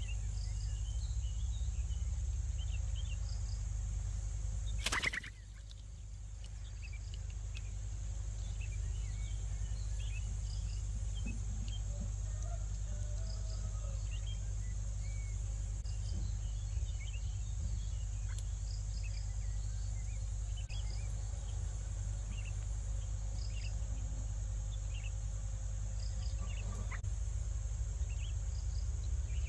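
Outdoor ambience: scattered short bird chirps over a steady high insect drone and a low steady rumble. A single sharp knock comes about five seconds in, after which the sound briefly drops away.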